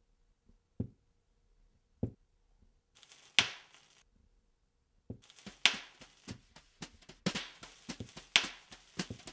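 Plastic bubble wrap being popped between the fingers: a few single sharp pops spaced a second or so apart, then a fast, irregular run of pops from about five seconds in.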